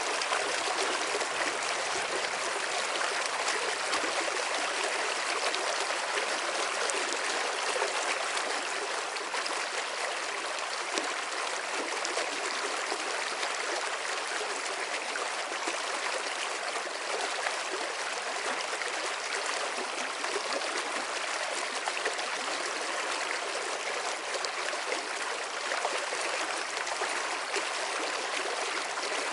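Running water flowing steadily, an even rush with no breaks.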